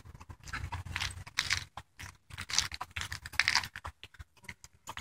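Irregular crunching and scraping sounds in short bursts, with near-silent gaps between them, picked up by a smartphone's built-in microphone while it records video.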